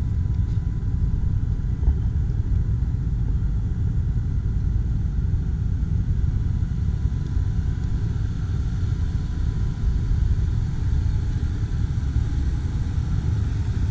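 Jeep Wrangler JL Rubicon driving on the trail: a steady low engine and drivetrain rumble, with one sharp knock about two seconds in.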